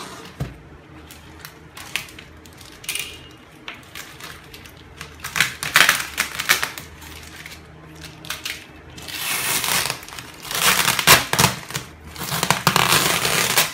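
Parcel packaging being handled and opened: paper and plastic wrapping rustling and crinkling in irregular bursts, with a few sharp clicks. It gets louder and busier in the second half.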